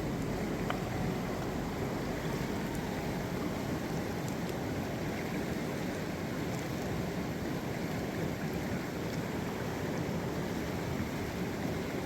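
Glacier-fed river rushing steadily, an even wash of water noise.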